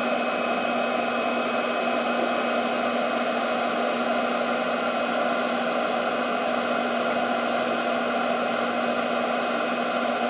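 A 1300-watt electric heat gun running steadily: a constant rush of blown air with a steady low hum and a thin high tone.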